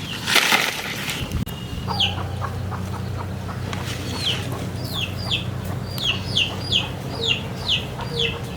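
Chickens peeping: a run of short, high, falling calls, coming faster towards the end, over a steady low hum. A brief noisy burst comes just after the start.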